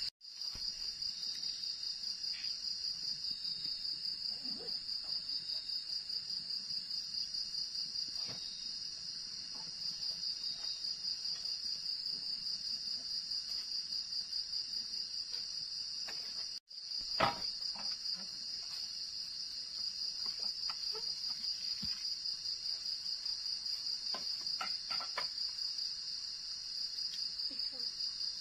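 Night insects chirring: a steady, high-pitched, rapidly pulsing trill. It breaks off for an instant twice, once just after the start and once about halfway. A few faint knocks and clicks come through, the sharpest just after the halfway break.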